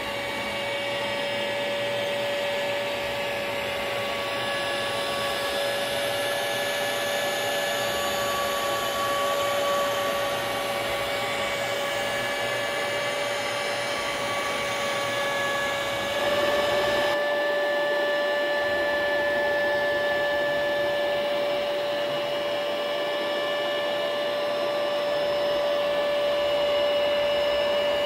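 DeWalt router serving as the spindle of a 3040 hobby CNC machine, running at high speed with a steady high whine as its bit cuts circles in thin lauan plywood. The sound steps up slightly a little past halfway.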